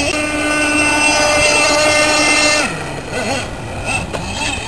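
Gas-powered RC boat's small two-stroke engine running at a steady high pitch, then the revs drop sharply about two and a half seconds in and waver low before picking back up near the end.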